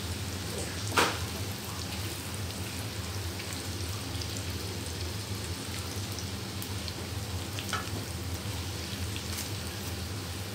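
Sliced shallots, garlic, galangal, lemongrass and bay leaves sizzling steadily in oil in a frying pan as they are stirred with a silicone spatula. Two sharp taps, the louder about a second in and a softer one near eight seconds.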